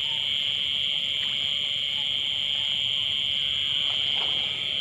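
Night-time chorus of insects in a rural field: a steady, high-pitched shrill without a break.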